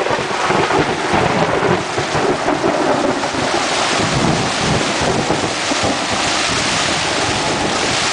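Heavy rain pounding on a tent, a dense steady hiss, with a low irregular rumble through the first half that settles after about five seconds.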